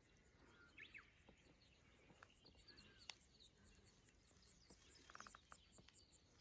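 Faint natural ambience: scattered short bird chirps and a brief trill about five seconds in, over a soft, evenly repeating high-pitched pulse at about three a second.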